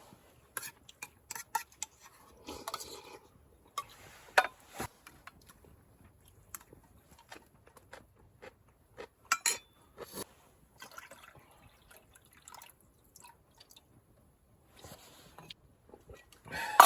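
Scattered sharp clicks and taps with brief rustling and liquid, drip-like sounds, as in handling camp cookware and utensils. The loudest burst comes near the end.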